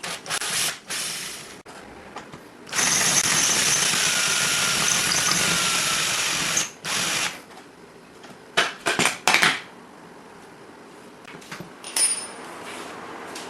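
Electric drill with a 6 mm bit drilling out the head of a suitcase wheel's axle pin, run in short bursts and one steady run of about four seconds, then a few more quick bursts.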